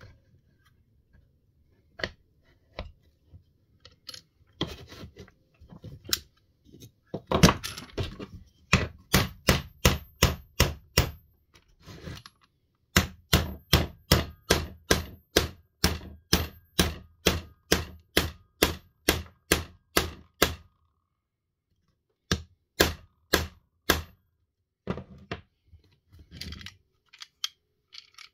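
Hand work on a Spinlock XA rope clutch: long runs of sharp, evenly spaced taps or clicks, about two to three a second, with scattered single knocks around them.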